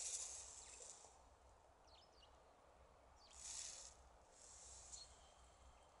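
Quiet winter ambience of dry reeds rustling in the wind, three soft hissing rustles: at the start, about three and a half seconds in, and a weaker one near five seconds. Faint short, thin calls of small birds come in between.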